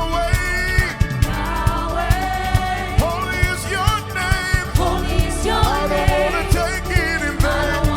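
Live gospel band playing with a steady drum beat and sustained keyboard chords, under a lead singer's wavering, gliding runs.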